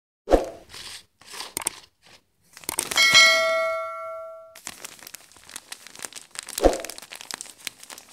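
Plastic bag of peat being opened and handled, crinkling and crackling, with a couple of sharp knocks. About three seconds in, a bright bell-like ding rings out and dies away, the chime of the on-screen subscribe animation.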